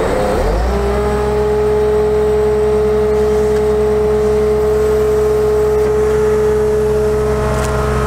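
Diesel engine running with the hydraulic pump whining as the bucket truck's rear outriggers are raised. At the start the whine climbs back in pitch from a dip as the load comes on, then holds steady.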